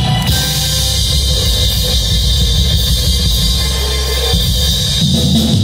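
Live band music played loud through a stage PA system, with a heavy bass low end.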